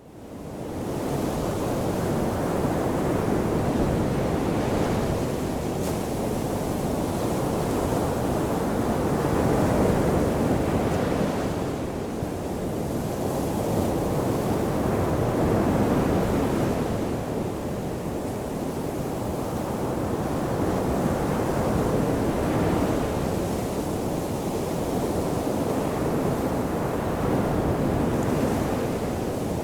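Ocean waves washing onto a shore: a steady rush of surf that swells and eases about every six seconds, fading in over the first second.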